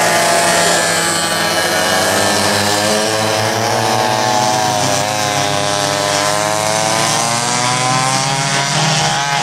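Several small two-stroke engines on vintage racing karts howl past together. Their overlapping notes dip in pitch around the middle and climb again as the drivers get back on the throttle.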